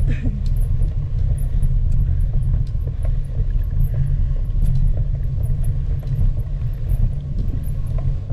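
Wind buffeting the microphone of a camera on a moving bicycle, a loud, steady low rumble.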